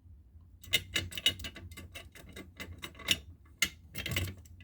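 Irregular light clicks and taps, with a few sharper ones, from a fire alarm pull station being handled and worked.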